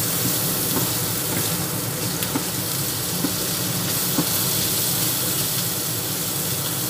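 Fatty beef sausage pieces sizzling in hot oil in a metal pan while being stirred with a wooden spatula: a steady sizzle with a few light ticks scattered through it.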